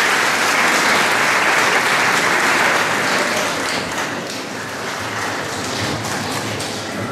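Audience applauding, loudest for the first three seconds or so, then thinning out into lighter clapping.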